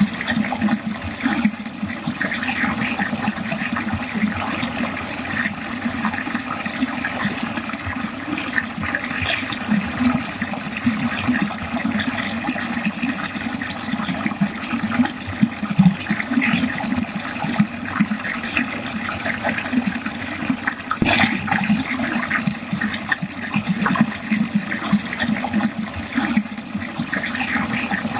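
Water flowing continuously down a drain, with an uneven low gurgle that keeps rising and falling. A single short click comes about three-quarters of the way through.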